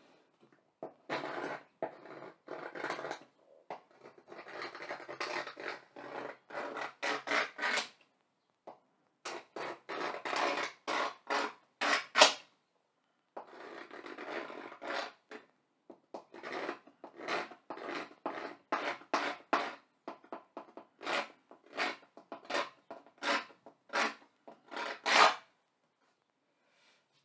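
A pointed tool scratching and carving lines into the surface of a blackboard, in quick runs of short strokes with brief pauses between runs.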